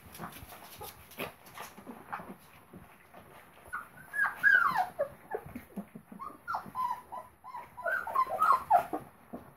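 Labrador retriever puppies, about 25 days old, whimpering and squeaking as they jostle under their mother to nurse. The short, high, falling whines come in clusters from about four seconds in, over soft shuffling and suckling clicks.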